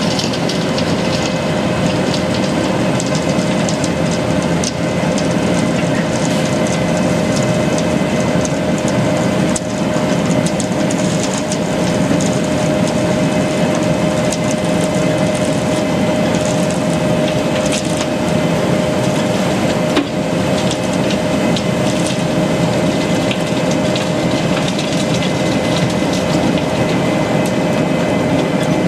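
Wirtgen W220 cold milling machine grinding off an asphalt layer: a loud, steady machine drone with a constant whine, full of the crunching clatter of broken asphalt as the milled material is conveyed into a tipper truck.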